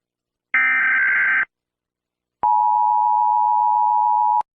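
Emergency Alert System signalling: a harsh, buzzy burst of SAME header data tones lasting about a second, followed after a short pause by the EAS two-tone attention signal, a steady tone held for about two seconds that cuts off sharply.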